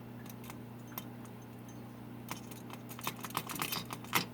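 A run of light clicks and taps, sparse at first and coming thick and fast over the last two seconds, over a steady low electrical hum.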